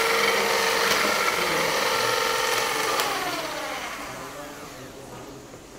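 Electric hand mixer whirring as its beaters whip cream in a steel bowl, then switched off about three seconds in, its pitch falling as the motor winds down.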